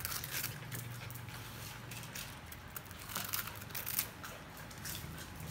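Scattered sharp clicks and scrapes from small dogs jumping up on a tile floor and biting at a wooden comb, over a low steady hum.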